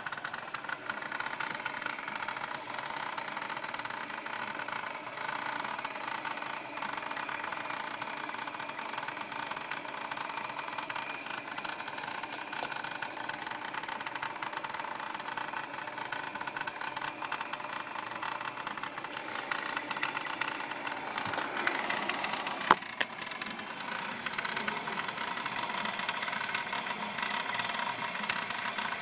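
Steady rattling buzz from the back of a 2000 VW Jetta VR6's engine with the ignition switched on but the engine not started, which the owner suspects is the intake manifold shift rod. The sound shifts in character about two-thirds of the way through, and there is a single sharp click about three-quarters of the way through.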